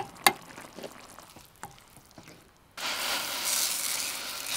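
Onions, bell pepper and cherry tomatoes frying in a pan on a camp stove. Two sharp clicks sound at the start, then a loud sizzle starts abruptly nearly three seconds in as dry orzo is poured in.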